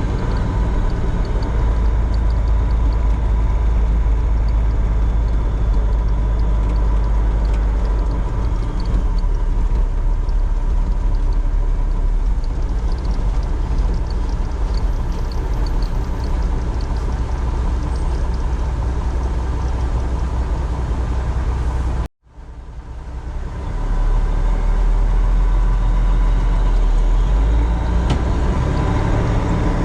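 Heavy farm diesel, a semi truck or a combine, running steadily with a deep rumble. The sound cuts out suddenly about two-thirds of the way through and returns within a second or two.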